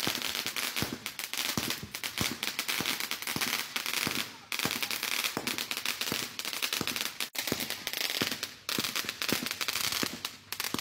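Consumer firework cake, the "Street Fighter", firing: a dense, continuous crackle of rapid small pops from its crackling stars, with brief breaks about four and seven seconds in.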